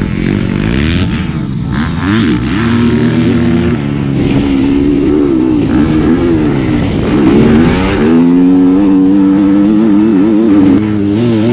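Yamaha motocross bike's engine revving hard under riding, its pitch rising and falling again and again with the throttle, heard close up from on the bike.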